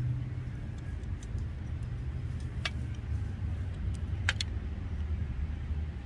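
Buck 110 folding knife shaving curls off a fatwood stick: a few sharp scraping clicks, the clearest about two and a half and four seconds in, over a steady low wind rumble on the microphone.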